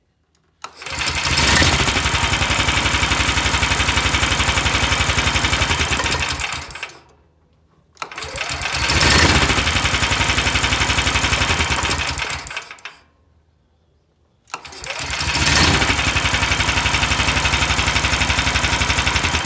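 A DuroMax 18 hp single-cylinder engine swapped into a Club Car DS golf cart, cranked by the cart's original starter generator. It catches and runs three times for about five or six seconds each, then winds down and dies, stopping when the pedal is let up as the pedal-start system should.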